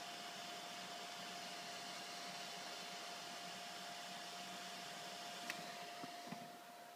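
Desktop computer's fans running with a steady whir and a thin whine. There is a sharp click about five and a half seconds in, a couple of lighter clicks follow, and the whir stops near the end.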